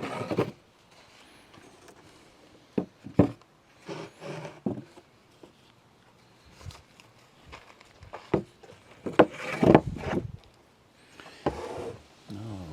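Wooden blocks and the countertop knocking and scraping as they are handled and set in place to support the countertop, in a string of separate knocks with a louder clatter of handling near the end.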